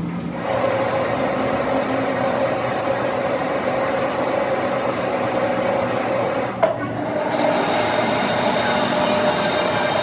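A workshop tool working on metal: a steady rasping, whirring run with a held humming tone, broken by a sharp click about two-thirds of the way through before it carries on.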